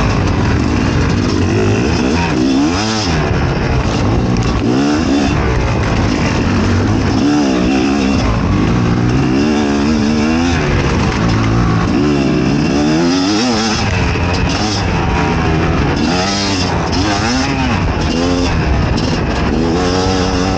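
Fantic XE 300 two-stroke enduro motorcycle engine running under load off-road, its revs rising and falling again and again every second or two.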